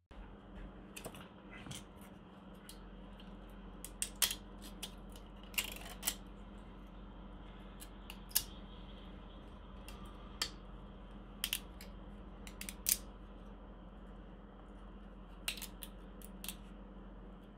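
Sharp plastic clicks and snaps at irregular intervals as leftover brim is picked and broken off a freshly 3D-printed plastic part by hand, over a steady low hum.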